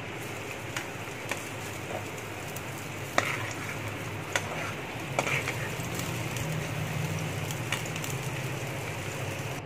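Chopped onions sizzling in hot ghee in a metal frying pan, stirred with a slotted metal spoon that clicks against the pan several times.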